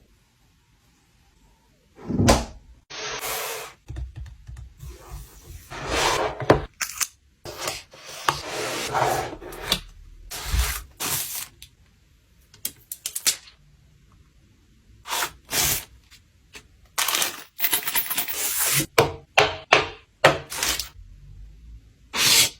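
Hands handling and unpacking items: a run of knocks, clicks and taps mixed with rustling and scraping of packaging, starting about two seconds in and coming in short bursts with brief pauses between.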